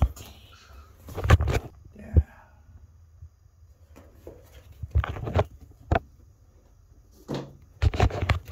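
A string of short knocks and clunks: a mirrored medicine-cabinet door being shut and handled.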